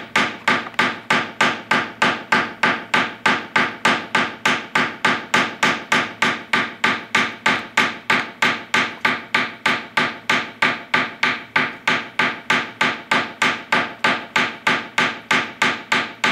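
Steel hammer striking wire on a steel bench block in a steady, even rhythm, about three to four blows a second, each with a short metallic ring: cold-forging the wire flat.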